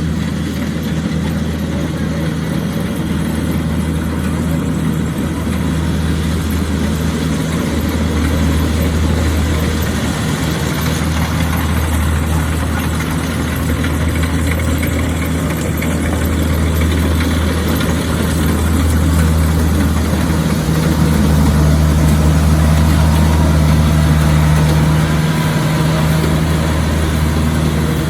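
Engine of a harvesting machine running steadily with a deep, even hum, growing a little louder in the last third.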